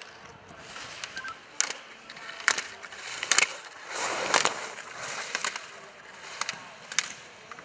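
Slalom skis scraping and carving on snow, loudest about four seconds in as the skier passes close. Sharp knocks of hinged plastic gate poles being struck come roughly once a second.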